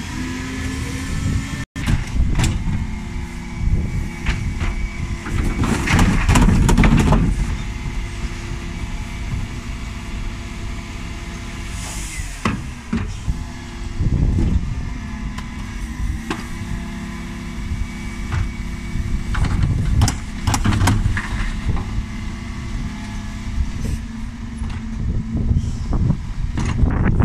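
Dennis Eagle Elite 6 bin lorry running steadily at the kerb, its Terberg bin lift working, with about four loud bouts of clattering and banging as wheelie bins are lifted and tipped into the rear hopper.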